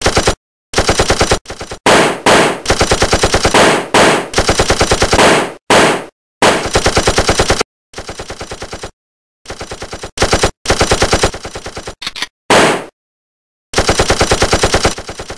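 Machine-gun sound effect: repeated bursts of rapid automatic fire, about ten shots a second, with dead silence between bursts and some bursts much louder than others.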